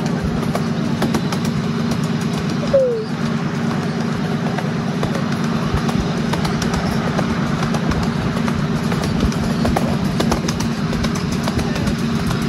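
Ride-on miniature railway train running along the track: a steady low drone from the locomotive with frequent clicks from the wheels on the rails. A brief falling squeak about three seconds in.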